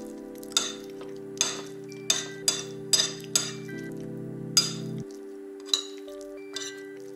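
Metal spoon clinking and scraping against a plate while food is scooped up: about ten sharp clinks at uneven intervals, over background music with long held notes.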